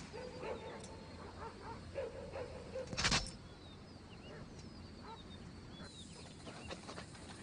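Short whining animal calls, then a single loud, sharp crack about three seconds in, followed by faint high chirps.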